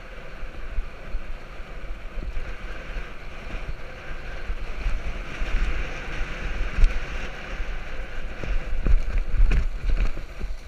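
Wind noise on a handlebar-mounted camera and tyre rumble as a mountain bike rolls fast down a dry dirt trail. The bike and camera mount rattle and knock over bumps, with several sharper knocks in the second half.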